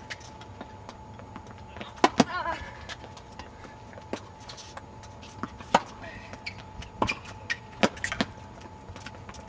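Tennis balls struck with rackets and bouncing on a hard court: scattered sharp pops at irregular intervals, the loudest two close together about two seconds in.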